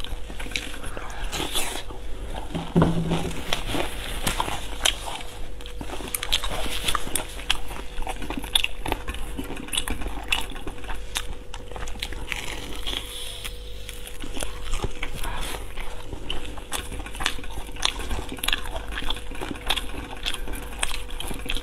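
Close-miked chewing and biting of a fried breaded chicken cutlet, with many small sharp clicks of chopsticks on a ceramic plate scattered throughout. A faint steady hum sits underneath.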